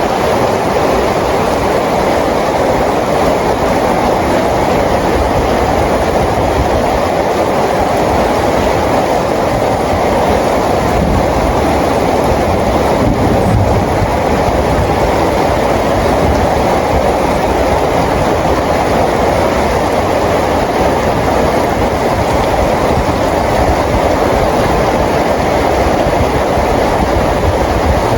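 Steady rain falling: an even, unbroken wash of noise that does not change.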